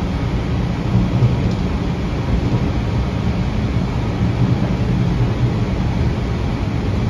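Steady low rumble of a CAF Urbos 3 streetcar running along its track, heard from inside the car just behind the operator's cab.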